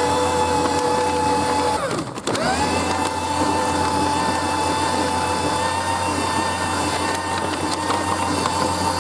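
Electric shredder's motor running with a steady whine. About two seconds in it winds down, then spins back up to speed and runs on steadily.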